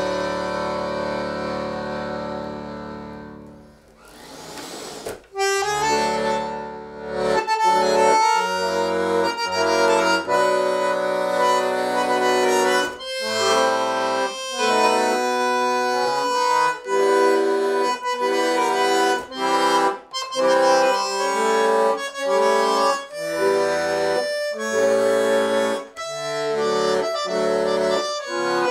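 Solo bandoneon playing a tango. A held chord fades out over the first few seconds. After a short break the music resumes in short, detached chords over bass notes in a steady rhythm.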